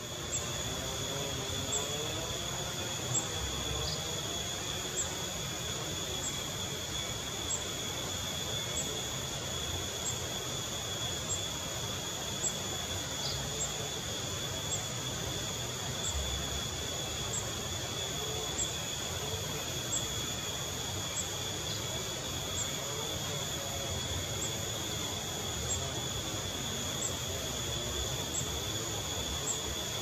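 Steady insect chorus: a continuous high trill with a short chirp repeating about once a second, over a low background hiss. Three faint single high chirps stand out, spaced several seconds apart.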